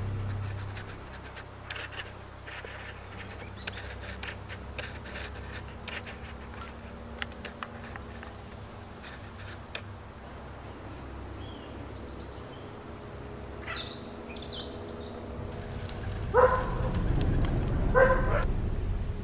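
Quiet outdoor ambience with a low steady hum, scattered small clicks and faint high chirps, then two short, loud animal calls about a second and a half apart near the end.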